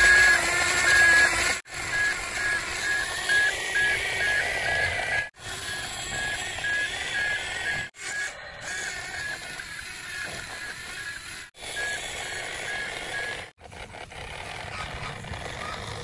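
Electronic sound effects from a toy RC excavator: a steady run of short warning beeps on one pitch, about three a second, over a buzzing electronic engine tone. The sound breaks off sharply several times.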